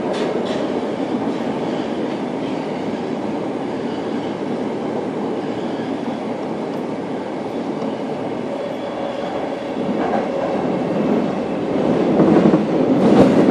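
Interior running noise of a Tokyo Metro Marunouchi Line 02 series subway car with PMSM traction motors: a steady rumble of wheels on rail, growing louder near the end with a few rail-joint knocks.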